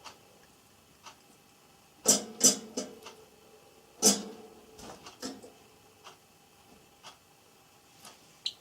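Java sparrow pecking and tugging at pea sprouts with its beak: light clicks about once a second, with a few louder rattling knocks about two and four seconds in.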